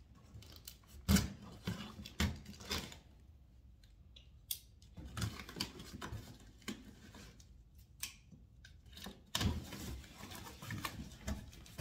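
Cardboard guitar shipping box being opened by hand: packing tape cut and pulled, with cardboard rustling, scraping and knocking. A sharp knock about a second in is the loudest sound.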